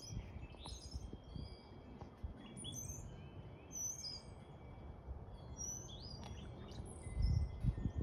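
Several small birds chirping and calling together in a tree, with many short high chirps and brief whistles overlapping. A low rumble on the microphone rises about seven seconds in.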